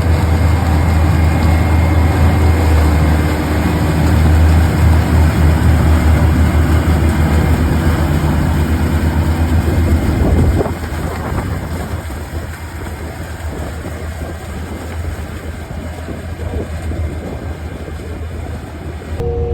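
Self-propelled sweet corn harvester working in the field, its engine and machinery running with a deep, steady rumble. About ten seconds in the sound drops abruptly to a quieter, thinner level.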